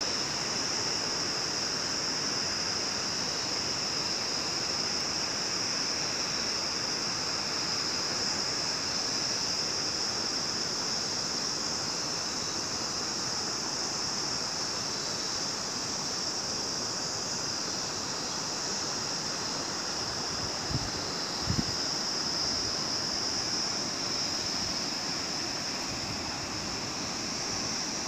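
Steady rushing of a mountain stream, an even wash of noise with a steady high hiss on top. Two brief low bumps about three-quarters of the way through.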